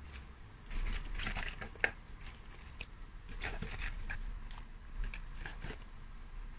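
Choy sum greens rustling and crackling as they are put into a pot of water at the boil, in irregular rustles and clicks over a low hum.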